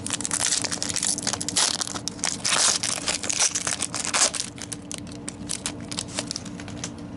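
Foil trading-card pack wrapper being torn and crumpled open by hand. Dense crinkling and crackling lasts about four seconds, then thins to a few scattered crinkles.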